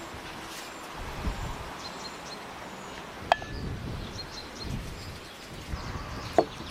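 Garden ambience: a steady background hiss with faint, short, high bird chirps. A sharp ringing clink comes about three seconds in, and another near the end.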